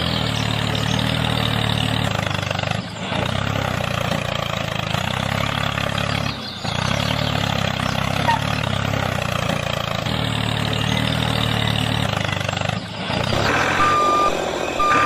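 A vehicle engine or motor running steadily, with the sound briefly dipping a few times. Short high beeps come in near the end.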